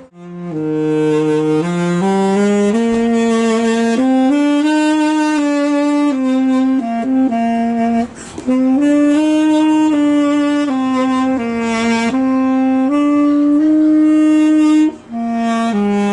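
Saxophone playing a slow melody of held notes, one note at a time, with short breaks about eight seconds in and near the end.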